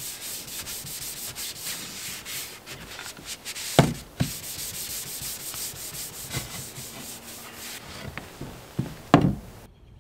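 Hand sanding a polyurethane-coated wooden canoe paddle lightly with 320-grit sandpaper: quick, steady rubbing strokes. A few sharp knocks come about four seconds in and again near the end. The sanding stops abruptly just before the end.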